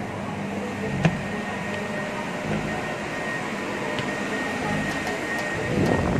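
Steady machine hum, like ventilation or electrical equipment, with a faint steady high tone, in the boarding area of the Peak Tram. A single sharp click sounds about a second in.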